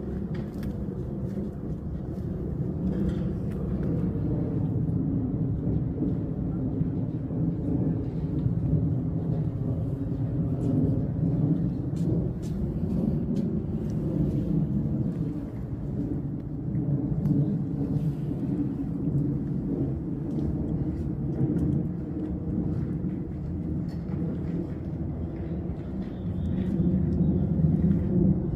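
Continuous low outdoor background rumble that swells and eases, loudest near the end, with a few faint clicks over it.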